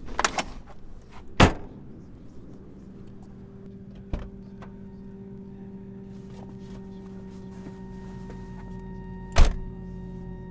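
Car doors shutting with heavy thunks, one about a second and a half in and a louder one near the end, with a lighter knock around four seconds and a quick clatter of smaller knocks at the very start.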